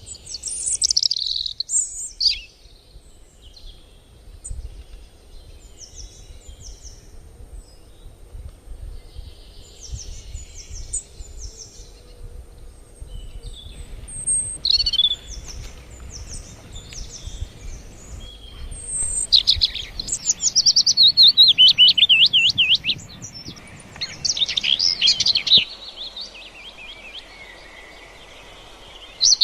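Birds chirping and singing: short repeated chirps, with a loud fast warbling trill about two thirds of the way in.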